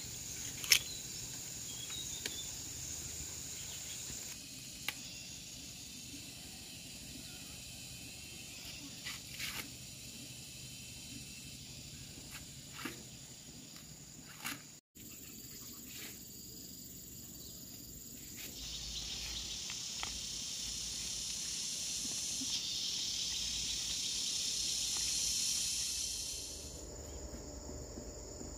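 Insect chorus: a steady high shrill, with a few sharp clicks in the first half. The sound cuts out for an instant about halfway. From about two-thirds of the way in, a louder, buzzier insect chorus swells for several seconds, then drops away near the end.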